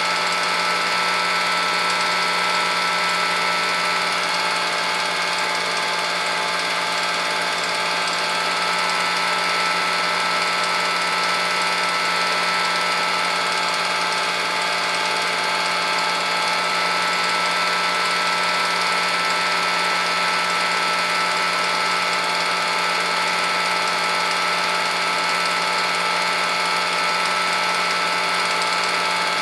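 Film projector running steadily: the even whirr and clatter of its motor and film transport, with no change.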